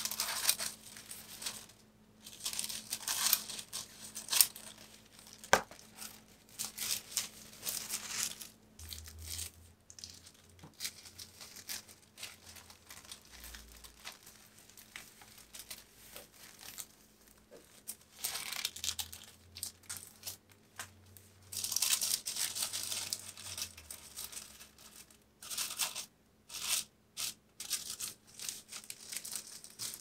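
Tissue paper rustling and crinkling in irregular bursts as it is cut with scissors and folded by hand, with quiet pauses between handlings and a few sharp clicks.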